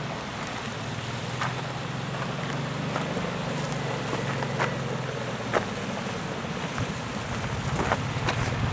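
An engine running steadily under wind noise on the microphone, with a few light clicks. The low engine hum fades about seven seconds in.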